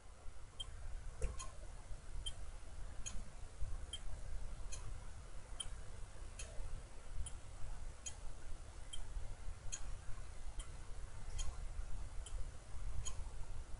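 Computer keyboard keys pressed one at a time, faint sharp clicks at a slow, fairly even pace of a little under one a second, over a low room rumble.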